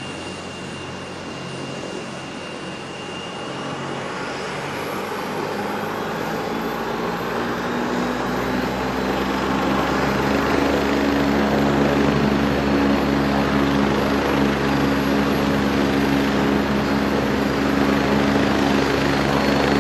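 Agusta A109E twin-turbine helicopter running, its turbine and rotor sound swelling over the first ten seconds or so, then holding steady with a low hum.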